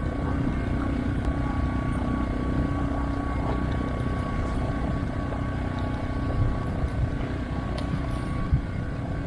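Portable generator running steadily with an even engine hum. A few light knocks sound over it in the last few seconds.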